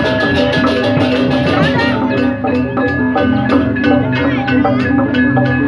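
Balinese gamelan music: bronze metallophones and gongs struck in a fast, busy, ringing rhythm.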